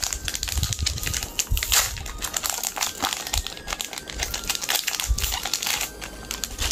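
Foil Pokémon card booster pack wrapper crinkling as hands tear it open and pull it off the cards, in a quick run of short, sharp crinkles.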